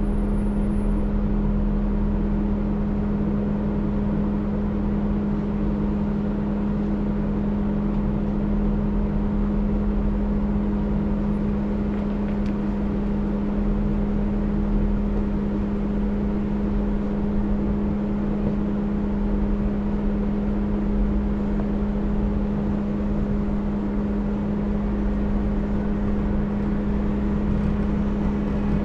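Off-road vehicle engine running at a steady speed, heard as a constant droning hum over a low rumble, with no change in pitch for the whole time.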